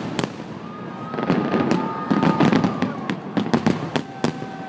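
Fireworks shells bursting in rapid, irregular bangs over a low rumble. Two long steady whistling tones sound over them, one from about half a second in and another near the end.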